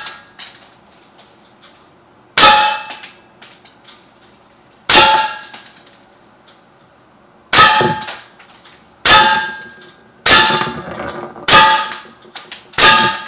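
Seven pellet shots from a Sig Sauer M17 CO2 pistol striking a ribbed steel tin can, each a sharp, ringing clang, spaced one to two and a half seconds apart, with small ticks after some. The .177 pellets dent and split the can without penetrating and bounce back off it.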